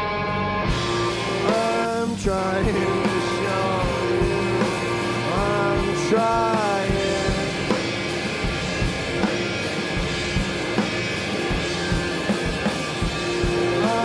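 Live rock band playing: strummed acoustic guitar, electric guitar and drums, with two short sung phrases, the first about a second and a half in and the second about five and a half seconds in.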